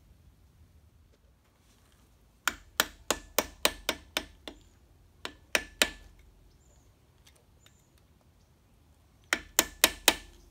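Hammer tapping a screwdriver against the lock washer on a Ford Model A's pinion nuts, flattening its tab so the nuts can be undone. The sharp metal-on-metal strikes come in three runs at about three a second, each strike ringing faintly.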